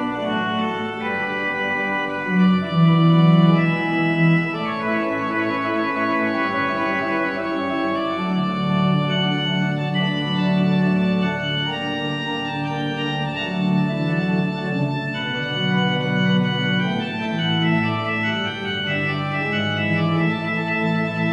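Organ music: slow, sustained chords with held notes that change every second or so.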